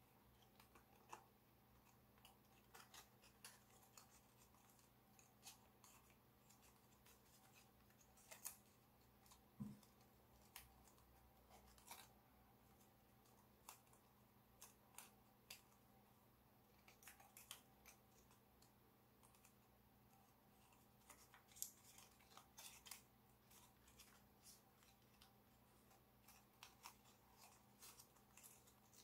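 Faint, irregular crinkles and clicks of gold foil origami paper being folded and pressed into creases by hand, over a low steady hum.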